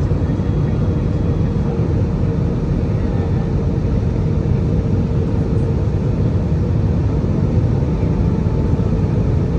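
Airbus A320-200 airliner heard from inside the cabin: a steady rush of engine and airflow noise, with a steady mid-pitched hum running through it.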